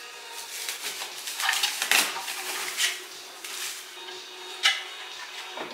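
Rustling and hard plastic clacks as a new water dispenser is unpacked and its plastic drip tray handled, with sharp knocks about two seconds in and again near five seconds.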